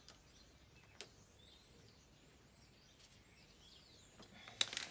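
Small clicks from an insulated screwdriver tightening the terminal screws of a 240 V hookup socket: a light click about a second in and a short cluster of sharper clicks near the end. Faint birdsong chirps throughout.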